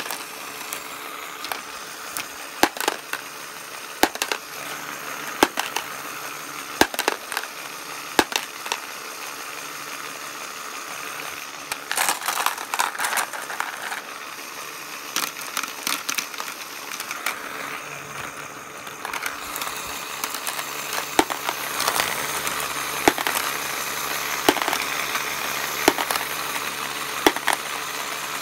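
Lego Great Ball Contraption conveyor belt running: a steady small-motor whir under irregular clicks and clatter of small plastic balls on the Lego bricks, with a dense burst of clatter about halfway through.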